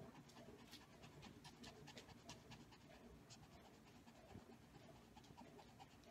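Small dog panting faintly, close to the microphone.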